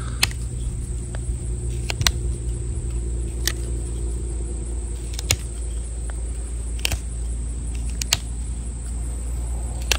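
Knife blade whittling a cedar bow-drill spindle: about seven short, sharp cuts, roughly one every second and a half, as small chips are taken to carve ridges around the spindle's end. Under it runs a steady low hum and a constant high insect drone.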